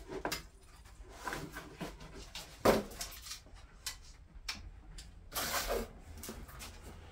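A Mini Cooper panoramic glass roof panel in its metal tray being handled and laid onto a car roof: irregular knocks, clunks and rustling scrapes. The loudest is a sharp knock just under three seconds in, and a longer scrape comes around five and a half seconds.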